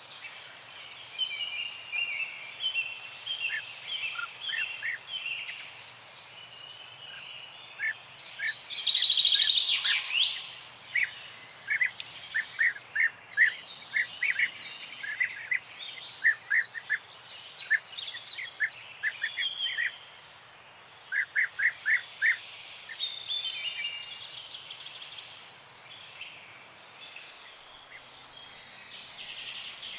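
Several songbirds chirping and singing together: many short chirps and quick runs of repeated notes, with one loud, dense burst of calling a little before the middle, over a faint steady background hiss.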